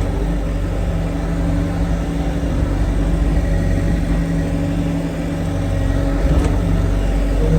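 Farm loader's diesel engine running steadily as it works the bucket through muck, the engine note dipping briefly and picking up again about five seconds in.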